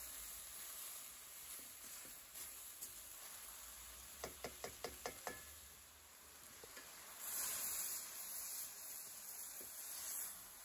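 Chicken and zucchini cooking with a faint steady sizzle in an enamelled steel pan while being stirred with a slotted spoon. A little under halfway there are about six quick knocks in a second, the spoon tapping against the pan. Later comes a louder scrape of about a second as the pan is stirred.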